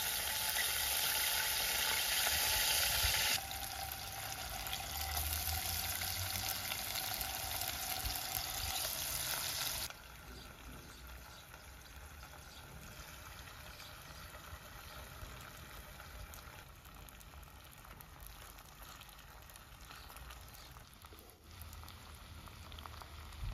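Hot oil sizzling in a black enamel pot over a wood fire, a steady hiss. It drops suddenly to a quieter sizzle about three seconds in, then to a much quieter background at about ten seconds.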